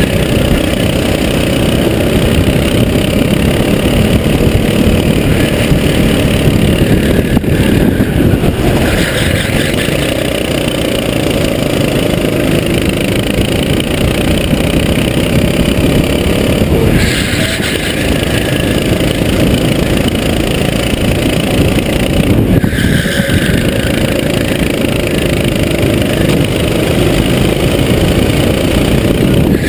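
Sodi SR4 kart's four-stroke engine running hard at racing speed, heard close up from the kart itself. The engine note changes briefly a few times as the driver lifts off and gets back on the throttle for the corners.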